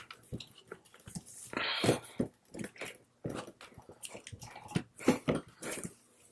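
Hands pressing and patting Play-Doh modelling clay flat on a plastic tabletop: scattered soft taps, clicks and sticky squishes, with small plastic toy parts being handled. A short hiss about two seconds in is the loudest sound.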